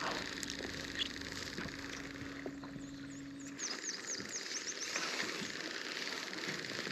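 Outdoor ambience on a lake: a steady low hum that stops about three and a half seconds in, followed by a bird's rapid series of high, down-slurred chirps.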